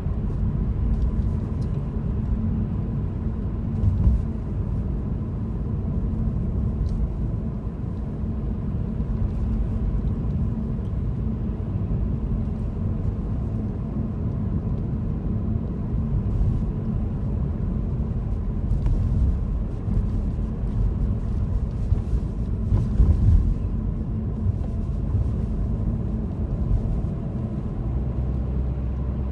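Steady low rumble of a car's engine and tyres heard from inside the moving car, with a couple of brief knocks about four seconds in and again near twenty-three seconds.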